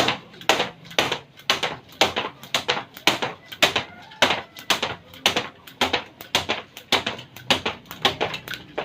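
A person exercising: a steady rhythm of short, noisy impacts, a little over two a second.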